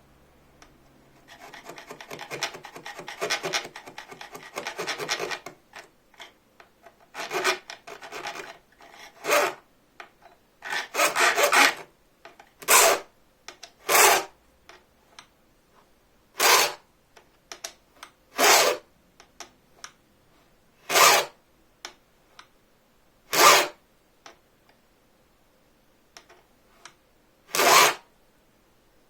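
A file cutting the first notches for the teeth into a bow-saw blade, the file held square to the blade. A quick run of short strokes comes first, then single strokes about every two seconds.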